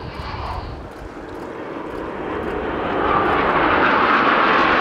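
Jet engine roar of a formation of Aermacchi MB-339 jet trainers flying overhead, growing louder over the first few seconds as the formation approaches, then holding steady.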